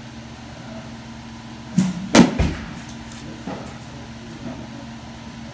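A softball batting-practice swing: a softer knock, then about half a second later a sharp crack of the bat striking the softball.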